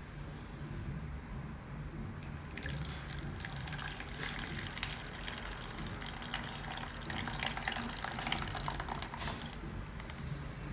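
Watery solution poured from a plastic dish into a plastic tub, trickling and splashing. It starts about two seconds in and stops near the end. The pour decants the blue acid-and-salt solution off the white silver chloride precipitate.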